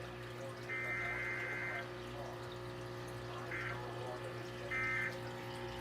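NOAA Weather Radio broadcast heard through a receiver: a steady hum under light static, with three short bursts of high buzzing data tones, the first about a second long and the next two shorter. These are the EAS/SAME digital header bursts that open the Required Weekly Test.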